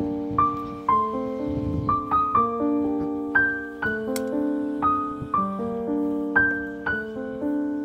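Background piano music: a gentle melody of struck notes that ring on, about two a second at an even tempo.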